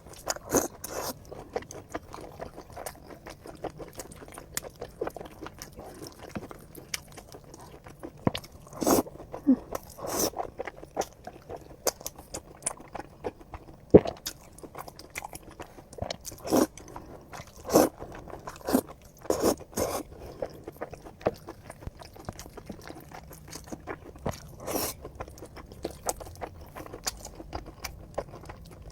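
Close-up eating sounds: irregular chewing, biting and wet mouth smacks, with some louder crunches.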